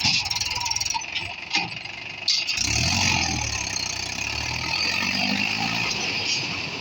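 Diesel engine of a heavy machine running. A little over two seconds in there is a sharp knock, then a deeper, louder engine note comes in and holds.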